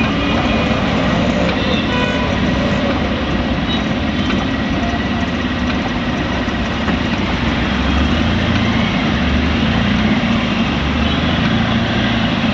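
Steady hiss of heavy rain on a waterlogged road, with vehicle engines running underneath.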